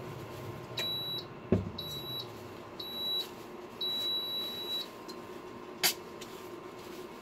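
Kitchen appliance beeping: four high electronic beeps about a second apart, three short and the fourth held about a second. A single sharp thump about one and a half seconds in, and a click near the end.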